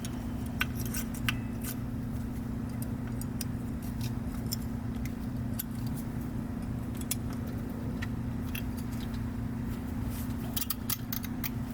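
Scattered light metallic clicks and clinks of brake pads being handled and fitted into a rear brake caliper bracket, with several clicks near the start and near the end, over a steady low hum.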